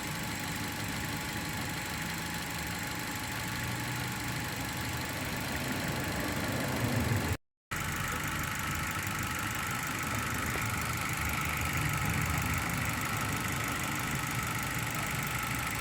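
Dongfeng Glory's engine idling steadily with an unstable, misfiring idle, caused by an exhaust valve that is sealing poorly and leaking compression. The sound drops out briefly a little after halfway.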